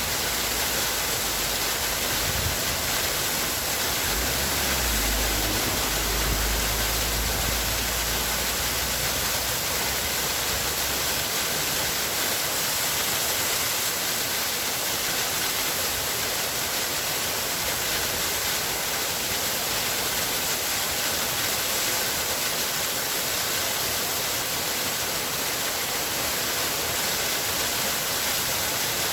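Waterfall: water falling and splashing in a steady, even rush. A low rumble sits under it for several seconds near the start.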